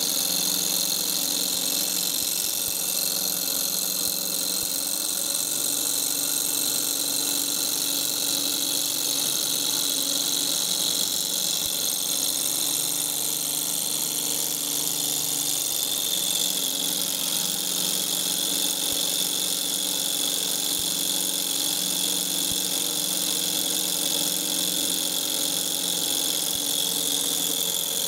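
Miniature hot air Stirling engine running steadily, a continuous even mechanical hum from its small piston and flywheel.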